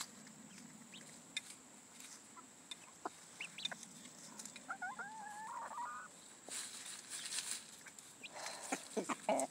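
Chickens clucking as they feed, with one wavering call about halfway through. Short light clicks and rustles in dry leaves from pecking and scratching at the feed.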